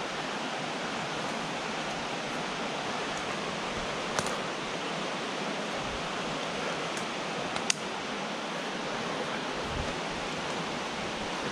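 Steady rushing noise of a river running high after hurricane rain, heard from the slope of its gorge. Two brief sharp clicks come about four and eight seconds in.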